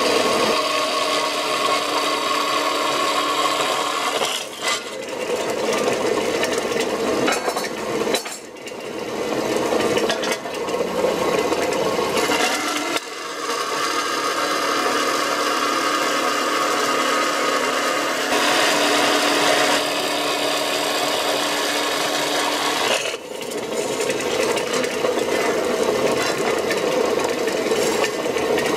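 A workshop power tool cutting through stacked metal plates, running steadily with a rasping cutting noise. The sound comes in several stretches that change abruptly about 4, 8, 13 and 23 seconds in.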